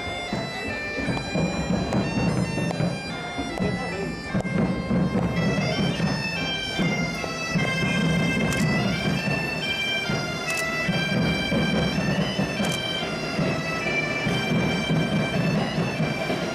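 A Portuguese bagpipe band (gaitas de foles) playing a melody over its steady drone, with bass drums beating along. From about eight seconds in, a sharp percussion accent lands about every two seconds.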